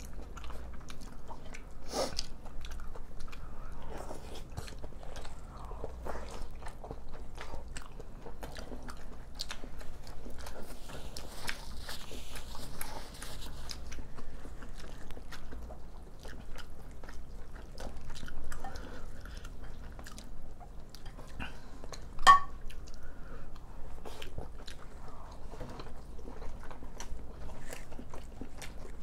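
Close-miked eating: wet chewing and biting of rice with spicy stir-fried toppings, with small clicks of a spoon and chopsticks against ceramic bowls. One sharper knock stands out later on as the loudest sound.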